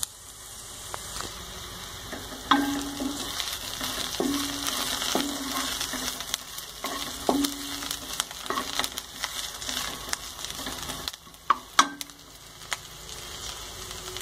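Onions, green chillies and curry leaves sizzling in hot oil in a non-stick pan, with a spatula stirring them and knocking against the pan about a dozen times, each knock leaving a short low ring.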